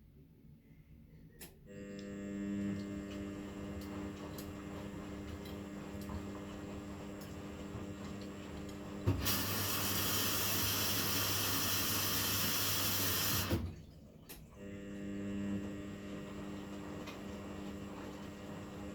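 Continental Edison washing machine mid-cycle: a steady motor hum as the drum turns gently, giving way about halfway through to a loud hiss of water rushing in for about four seconds, after which the hum resumes.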